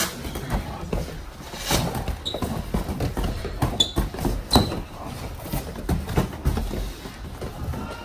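Boxing gloves thudding in close-range sparring: irregular hits and scuffling, the hardest about four and a half seconds in, with a few short squeaks from shoes on the floor.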